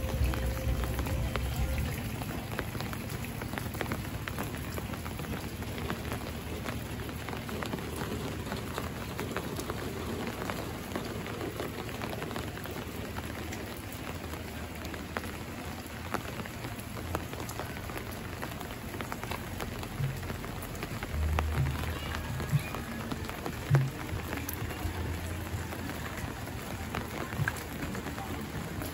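Steady rain falling, with many scattered drops pattering on surfaces. A few low thumps come about two-thirds of the way in.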